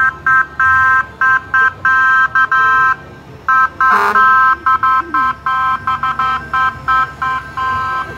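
Fire engine's horn honked over and over in short and long blasts of a steady two-note tone. There is a pause about three seconds in, and a short noisy burst about four seconds in.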